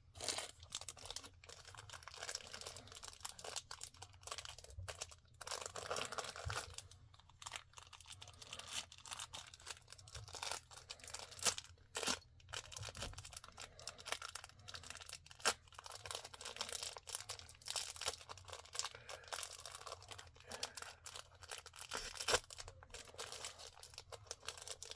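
Packaging being crinkled and torn open by hand, an irregular crackling with many sharp clicks and crunches throughout.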